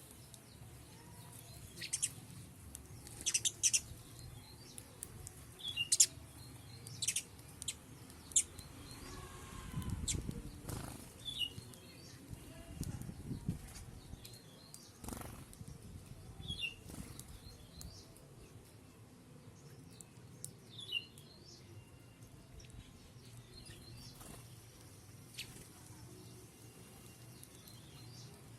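Birds feeding on scattered grain: wing flaps and sharp clicks, with a short high call repeated every few seconds.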